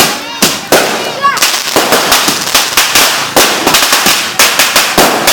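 Firecrackers and fireworks going off in a rapid, irregular string of sharp bangs, several a second, overlapping one another, with voices shouting in between.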